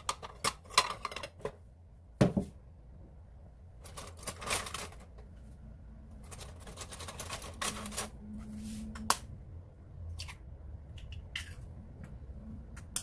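Kitchen handling sounds: sharp knocks and clatter, the loudest about two seconds in, and rustling as a ceramic bowl is set on a plastic cutting board and eggs are picked up. A few light taps come near the end as an egg is knocked to crack it.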